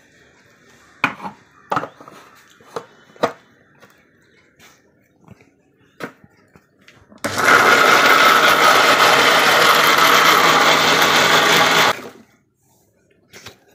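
Electric mixer grinder (mixie) running steadily for about five seconds, grinding cooked tomatoes and green chillies into chutney, then cutting off suddenly. Before it comes a scatter of quiet clicks and knocks as the steel jar is handled and set on the base.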